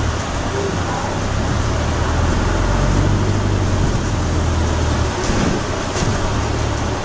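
Interior of a hybrid double-decker bus on the move: a steady low drivetrain hum under road and tyre noise. The hum shifts about five seconds in, and there is a short knock about six seconds in.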